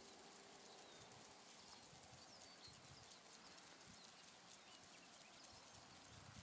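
Near silence: faint outdoor ambience with rapid, faint ticking and a few faint short chirps.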